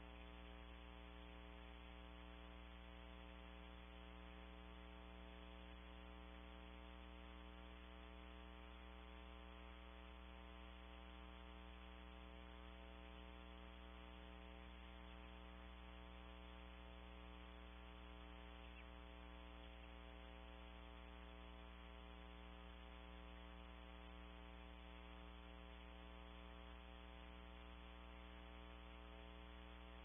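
Faint, steady electrical mains hum with its overtones and a light hiss, unchanging throughout; no owl calls stand out.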